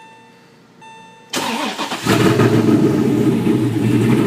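Porsche Boxster's swapped LS3 V8, exhaust with no mufflers (only two high-flow catalytic converters and an X-pipe), being started. After two faint beeps the starter cranks about a second and a half in, the engine catches about two seconds in and runs loudly at idle.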